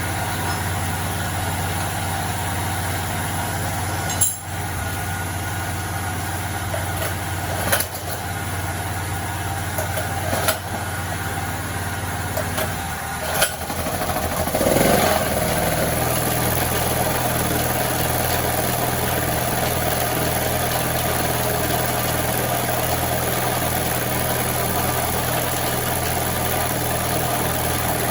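Generator engine running steadily, with four sharp clicks in the first half. About halfway through, the running note swells briefly and then settles at a slightly higher pitch.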